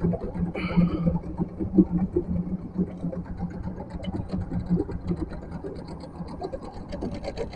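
Small boat's outboard motor running slowly, a steady low hum with an uneven pulse.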